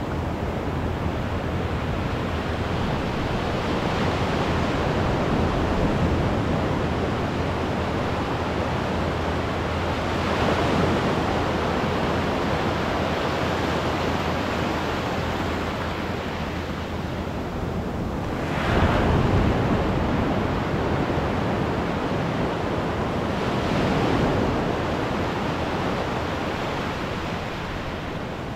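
Ocean surf: small waves breaking and foamy wash running up over the sand, a continuous rushing that swells and ebbs with each wave. The loudest rush comes about nineteen seconds in.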